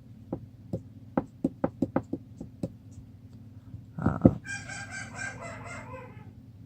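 A run of about eight sharp clicks, then a heavy thump about four seconds in, followed by a rooster crowing for about two seconds.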